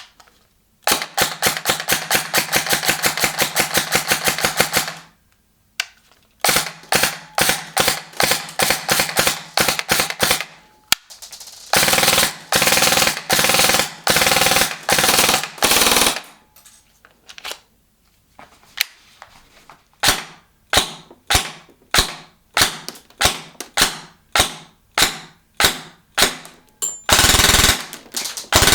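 Krytac Kriss Vector airsoft electric gun firing: long full-auto strings of rapid, evenly spaced shots from its gearbox, then shorter bursts. In the last part it fires single semi-auto shots about twice a second, for chronograph readings.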